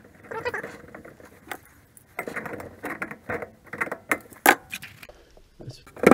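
Metal clinking and scraping as pliers work a dishwasher's water-supply fitting, with a few sharp clicks.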